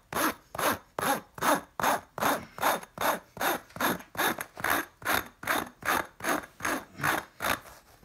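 Hole saw rasped back and forth by hand over plastic knitting mesh, scuffing up the screen so algae will stick to it: an even scratching rhythm of about two and a half strokes a second that stops shortly before the end.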